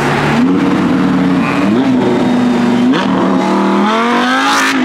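Audi R8 V10 accelerating hard through the gears, the engine note climbing and dropping back at upshifts about two and three seconds in, then climbing long and high before it cuts off near the end.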